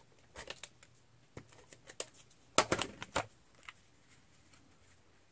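Hands handling and pressing cardstock on a work surface: a scattering of light paper taps and rustles, loudest in a cluster about two and a half to three seconds in.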